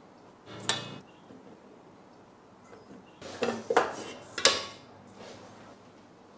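Metal clinks and knocks from a Kenwood stand mixer's stainless steel bowl and beater as dough is scraped off with a spatula and the bowl is handled: one knock a little under a second in, then a cluster of several sharper clanks a few seconds later, the loudest near the end of it.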